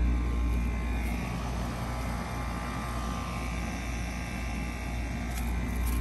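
2004 Goodman PHKJ042 3.5-ton packaged heat pump running in cooling mode: a steady low hum from the compressor and the outdoor fan.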